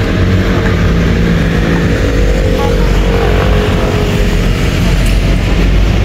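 Steady road-traffic noise from city streets, with a vehicle engine humming through the first few seconds.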